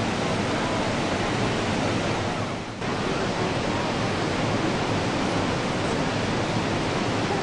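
Steady rushing roar of Niagara Falls, an even wash of falling water with no distinct events, briefly dipping nearly three seconds in.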